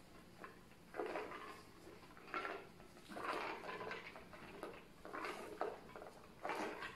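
Cloth towel rubbing and rustling over a rubber ice bag filled with ice chips, the ice shifting inside, in irregular bursts.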